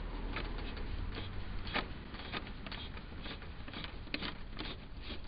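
Phillips screwdriver backing a screw out of a plastic headlight housing: small irregular clicks and scrapes over a steady low hum.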